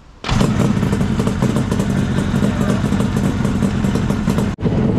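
Kawasaki H2 750 two-stroke triple motorcycle engine running steadily, with a split-second break near the end.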